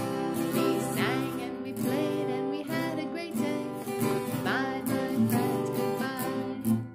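Acoustic guitar being strummed, with a woman singing along to it.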